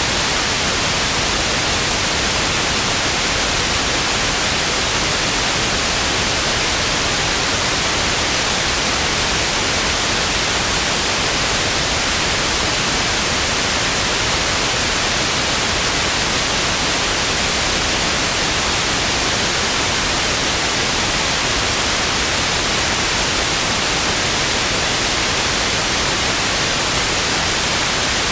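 Television static: a steady, even hiss of white noise, brightest in the treble, unchanging throughout.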